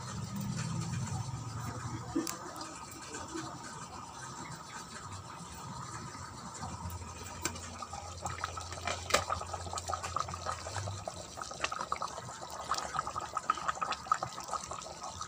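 Chicken curry in coconut milk bubbling at a simmer in a pan: a steady crackle of popping bubbles that grows busier in the second half.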